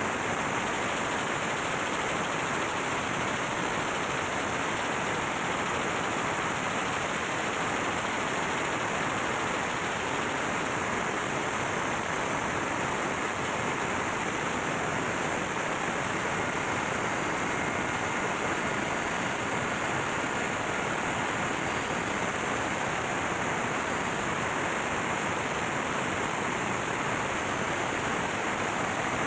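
MAN B&W auxiliary diesel generator engine running steadily, heard as a loud, constant din with no separate beats or changes.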